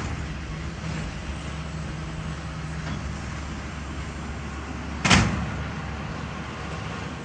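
Tractor engine running steadily while pulling a round baler. About five seconds in there is a single loud thump.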